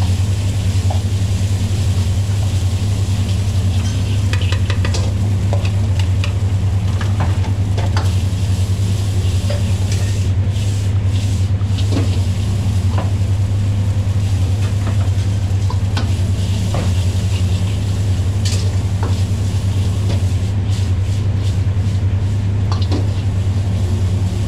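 Pork fried rice being stir-fried in a wok, a metal ladle scraping and tossing it with scattered clicks of metal on the pan over a steady sizzle. Under it all runs a loud, steady low rumble.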